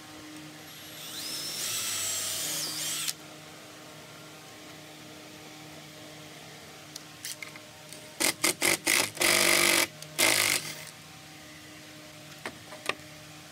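Cordless drill boring a hole into a wooden fence post, its motor whine climbing in pitch, then stopping abruptly about three seconds in. About eight seconds in comes a run of short, loud bursts of noise.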